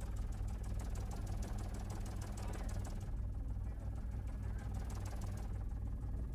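News helicopter's rotor and turbine engine heard from on board: a steady low drone with a fast, even beating.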